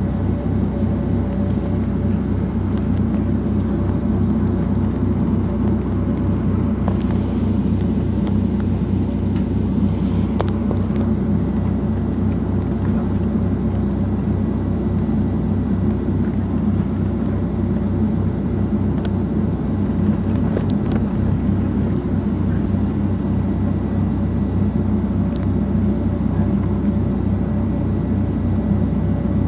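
Steady cabin drone inside a Boeing 757-200 before taxi: a low rumble with a few held tones from the aircraft's engines and air-conditioning system. A few faint clicks sound about a third of the way in.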